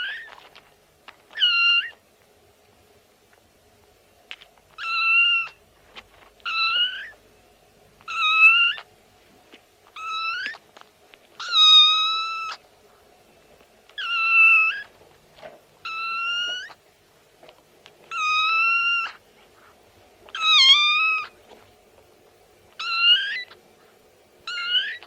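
A domestic cat meowing over and over: about a dozen separate meows, each lasting half a second to a second, with gaps of a second or two between them.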